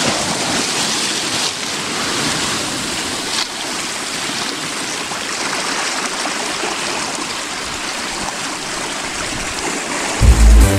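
Sea waves washing and splashing over shoreline rocks, a steady rush of surf. Electronic music cuts in suddenly near the end.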